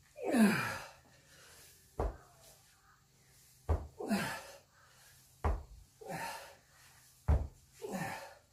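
Heavy dumbbells knocking down onto a rubber gym floor four times, about two seconds apart, between lifts. Each knock comes with a hard, forced exhale or grunt of effort, the loudest just after the start.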